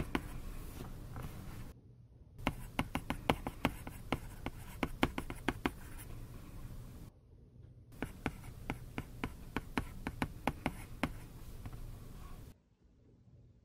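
Apple Pencil's plastic tip tapping and scraping on an iPad's glass screen while Japanese characters are handwritten: quick runs of sharp taps, one per stroke. It stops briefly twice and drops away near the end.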